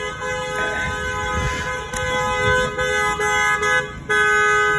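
Car horns honking in celebration: long held blasts, breaking into shorter honks after the middle, loudest near the end.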